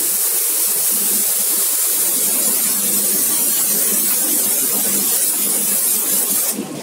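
Handheld high-pressure spray gun blasting a steady hiss of spray onto the fins of an air-conditioner coil, cutting off near the end.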